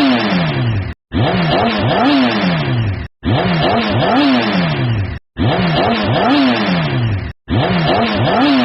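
Sports car engine revving: its pitch climbs and then falls back. The same short rev clip repeats about every two seconds, each cut off abruptly with a brief silence before the next.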